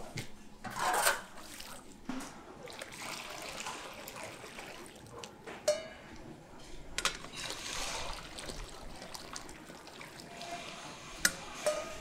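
Liquid poured from a metal ladle into a large wok, splashing about a second in, then swirling and sloshing in the pan, with a few sharp metal knocks.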